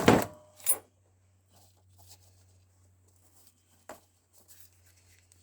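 Paper gaskets and their packaging being handled on a workbench: two loud handling noises in the first second, then faint rustling with a single sharp click about four seconds in.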